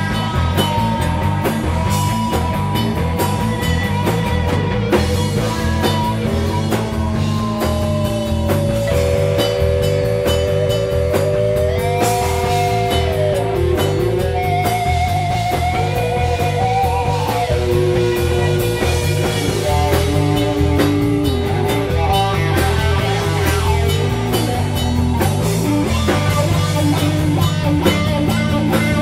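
Psychedelic rock band playing: long held lead notes that glide from pitch to pitch, over a steady bass and drum beat.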